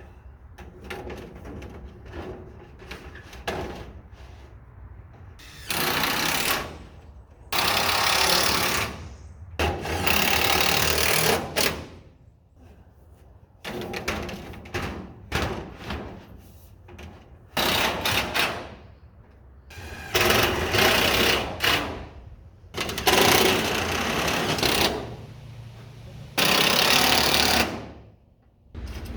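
Power screw driver running in about eight bursts of one to two seconds each, driving screws to fasten corner trim, with quieter handling clatter between the bursts.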